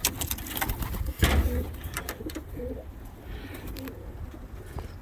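Domestic pigeons cooing softly, with sharp clicks and a loud rustling rush of noise about a second in.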